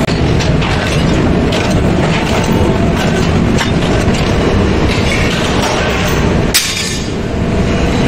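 Metalworking machinery running loudly, a dense continuous clatter of metal parts, with one sharper clank about six and a half seconds in.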